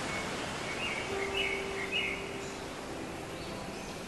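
Outdoor ambience of steady background noise, with a short run of bird chirps about one to two seconds in.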